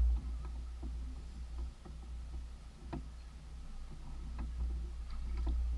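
Wind buffeting the microphone as a low rumble that swells and eases, with a few faint clicks and knocks, the sharpest about three seconds in.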